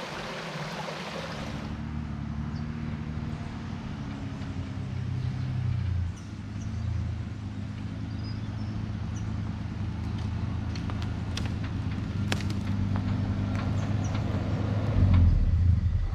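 Toyota LandCruiser 80 series engine running as the vehicle moves along a dirt track, its pitch shifting a few times and loudest near the end. There is a brief hiss at the start, and a few knocks come between about ten and thirteen seconds in.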